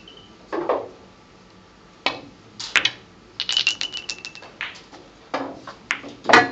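Billiard balls clacking against each other and knocking on the table during play, with a quick run of rattling clicks about three and a half seconds in and the loudest knock near the end.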